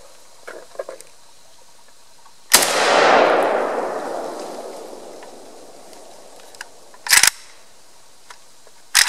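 A single shot from a home-built AK-63D rifle firing a 7.62×39 round, about two and a half seconds in, with its echo dying away over about three seconds. Two short clacks follow near the end as the rifle is handled.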